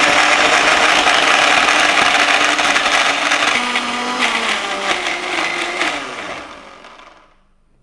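Philips 750-watt mixer grinder running at full speed with its multi-purpose jar, grinding soaked dates into a fine paste. About four seconds in, the motor's pitch drops and it winds down, fading out about seven seconds in.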